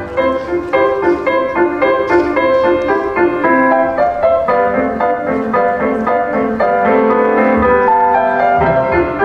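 Recorded piano music, a flowing melody of quick short notes over chords.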